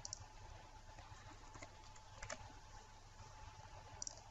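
Computer mouse clicking a few times, some clicks in quick pairs, faint over a low steady hum.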